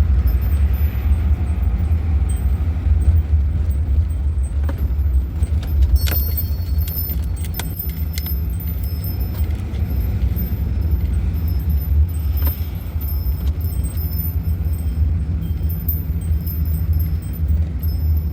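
Van engine running with a steady low drone, heard from inside the cab, with a few sharp clicks about six and twelve seconds in.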